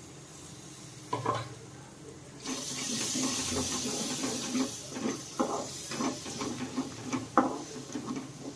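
Chopped onions hitting hot oil and besan in a pan: a sudden loud sizzle about two and a half seconds in that slowly dies down, with the clicks and knocks of stirring against the pan.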